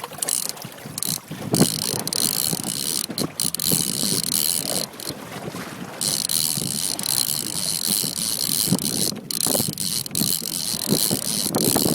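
Fishing reel drag buzzing as a hooked bluefin tuna pulls line, a high hiss that stops and starts several times, over boat and sea noise.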